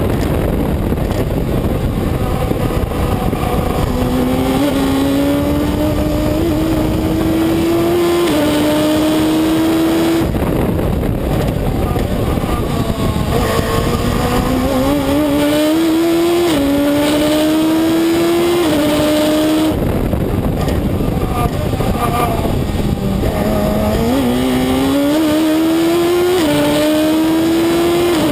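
Reynard Inverter sports-racing car's engine heard from onboard, revving up through the gears: its pitch climbs and drops back at each upshift, then falls away twice, about ten and twenty seconds in, as the car slows and shifts down, before climbing again. Steady wind and road noise runs under it.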